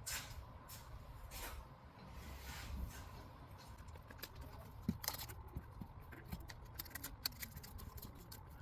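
Rubber garage-door bottom seal being worked by hand through its aluminium retainer track without lubricant: faint scraping rubs, then a run of small clicks and ticks in the second half.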